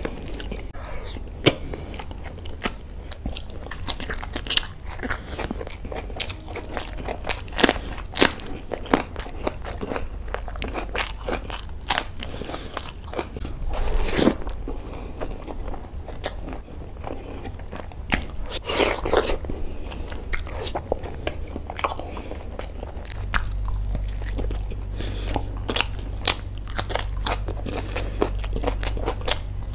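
Close-miked mukbang eating: a man chewing mouthfuls of rice and chicken, with many sharp wet mouth clicks and smacks. A steady low hum runs underneath and grows louder about 23 seconds in.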